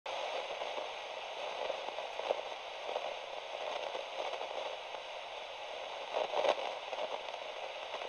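Steady crackly static hiss with scattered faint clicks, a little louder around six seconds in.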